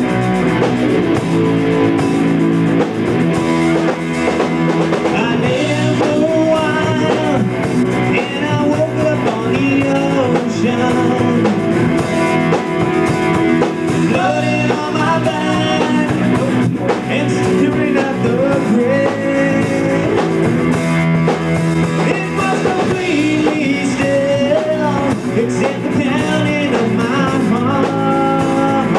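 Live rock band playing with electric guitars and a drum kit, and a male voice singing lead that comes in about five seconds in.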